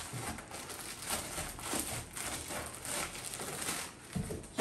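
Clear plastic packaging bag crinkling and rustling as it is handled, in small irregular bursts.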